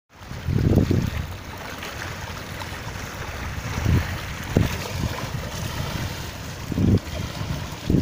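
Wind buffeting the microphone in low gusts, strongest about a second in, around the middle and near the end, over a steady rush of small waves on a reservoir shore.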